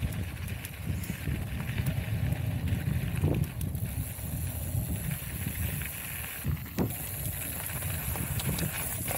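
Mountain bike riding a trail: wind buffeting the camera microphone over the rumble of the tyres, with a couple of knocks from the bike over bumps.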